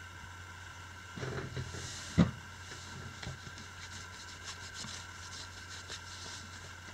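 Hands handling small objects: a short rustle, then one sharp knock about two seconds in, followed by a run of light clicks and ticks, over a steady low hum.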